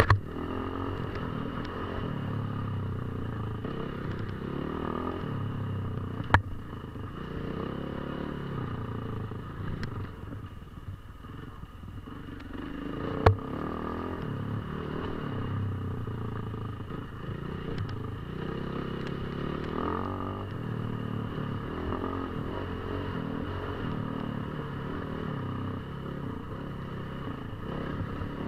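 KTM 450 EXC enduro motorcycle's single-cylinder four-stroke engine running off road under constantly changing throttle, easing off briefly about ten seconds in. Three sharp knocks cut through it: one at the start, one about six seconds in, one about thirteen seconds in.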